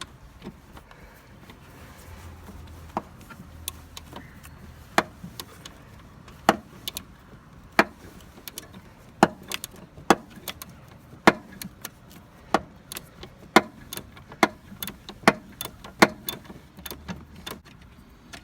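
Ratchet and 18mm socket clicking in short strokes as a Jeep Cherokee XJ's motor mount bolt is undone, a sharp metallic click about every second with lighter ticks between, growing louder and more frequent about halfway through.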